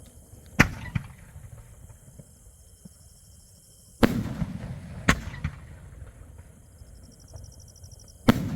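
Shots from a 3-inch, nine-shot repeating aerial fireworks cake: four loud, sharp bangs a few seconds apart, with a smaller crack just after the first, each followed by a low rumbling tail.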